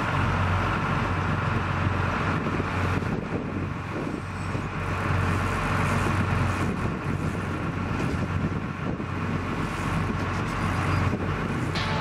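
Sport-fishing boat's engine running steadily under way, a low hum under an even rush of noise.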